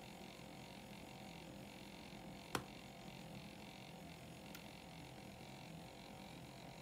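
Electric milk frother running through its hot-froth cycle, its spinning whisk and heater giving a faint, steady hum. One sharp click comes about two and a half seconds in, and a fainter tick about two seconds later.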